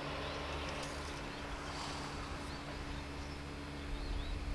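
Distant rail-yard background: the steady low hum and noise of a diesel-or-electric locomotive moving off along the freight tracks. A few short, high chirps come in the second half.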